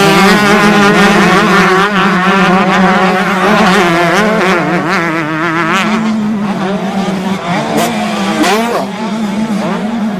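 125cc two-stroke motocross bikes at racing revs, engine pitch wavering rapidly as riders work the throttle. Near the end, revs sweep up sharply with a few sharp crackles.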